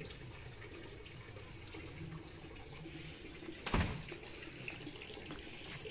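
Water being poured and splashed from a cup into a plastic bucket. A single thump comes a little past halfway.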